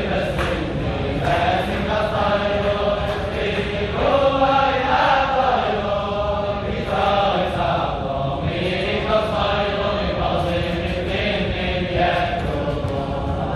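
A large group of men singing a Hasidic melody together, sustained and flowing from phrase to phrase.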